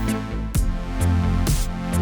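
Electronic background music with a steady drum-machine beat, about two beats a second, over a sustained bass line.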